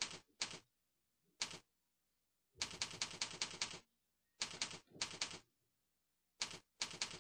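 Computer keyboard typing in short bursts of keystrokes. First come a few single keys, then a quick run of about eight keystrokes a little over two seconds in, then more short runs of two to four keys.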